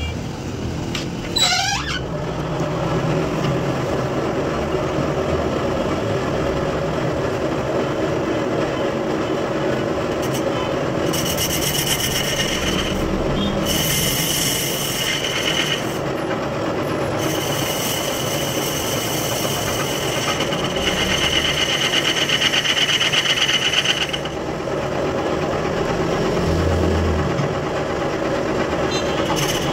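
Metal lathe spinning a motorcycle wheel hub while its cutting bit skims the brake drum. The scrape comes and goes in passes of a few seconds, each a high rasping whine over the steady run of the machine.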